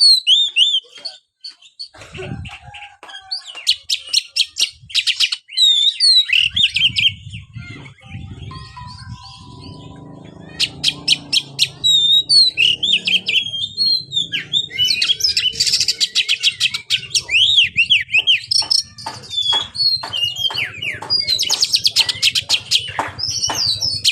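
Oriental magpie-robin (kacer) singing: a fast, varied run of whistles, chirps and rapid trills in several bursts. A low steady hum runs underneath from about six seconds in.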